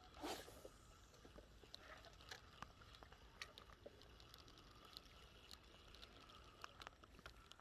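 Near silence, with faint scattered clicks and ticks and one brief louder noisy rustle a fraction of a second in.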